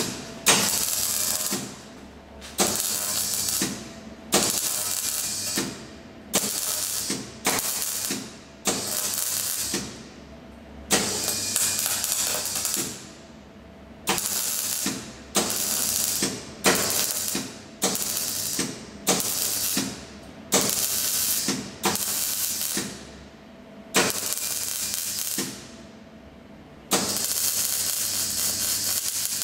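Wire-feed welder arc crackling in a string of short welds, each about a second long with brief pauses between, about twenty in a row, then a longer continuous bead starting near the end. This is stitch welding along a bent bumper tube.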